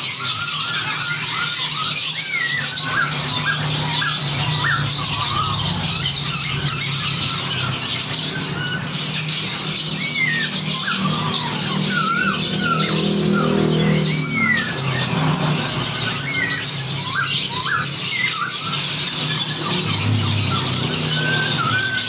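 Many songbirds singing and chattering over one another in a dense chorus, with short whistled notes sliding up and down standing out. It is a combined masteran track of several songbird species calling back and forth, used to teach captive songbirds.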